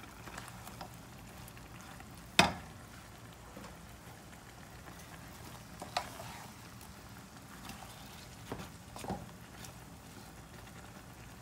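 Eggplant and minced chicken adobo sizzling quietly and steadily in a non-stick pan while it is stirred. A spatula knocks against the pan a few times, the loudest knock about two seconds in.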